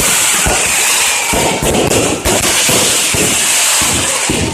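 Fireworks going off in a rapid, continuous barrage: many bangs and crackles in quick succession over a steady hiss.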